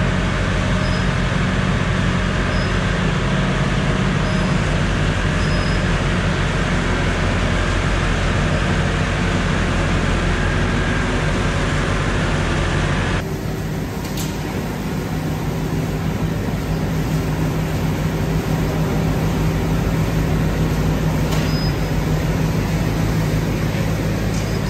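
Tractor-mounted straw blower running steadily: the tractor's engine hum under the rushing noise of the blower spraying chopped straw. The rushing eases a little about halfway through, and the engine keeps running.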